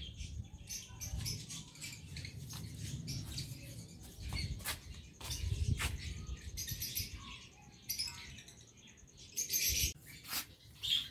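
Small birds chirping in short, high calls scattered through the clip, busiest near the end. Under them is an uneven low rumble and some clicks from the phone being handled as it moves.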